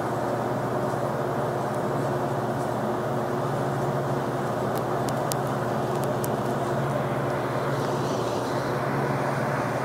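Steady machine hum, an even drone with a fixed low tone. A few faint light metallic ticks come about five to six seconds in.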